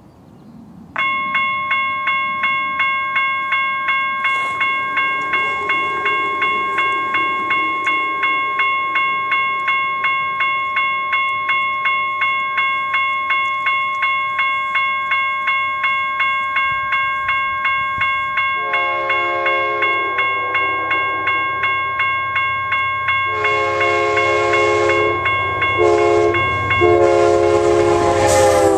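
Level-crossing warning bell ringing steadily at about two strokes a second. An approaching Amtrak diesel locomotive leading a Talgo train sounds its horn in the grade-crossing pattern, long, long, short, long, and the train's rumble grows until the locomotive passes close by at the very end.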